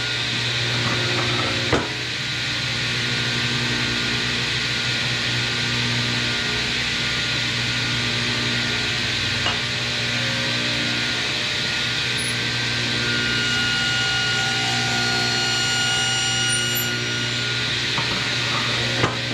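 Table saw running with its motor's steady hum while its blade cuts into a wooden board, rasping through the wood. A couple of light knocks, about two seconds in and near the end.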